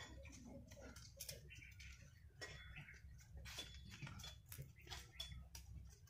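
Near silence: faint outdoor ambience with scattered soft clicks and ticks.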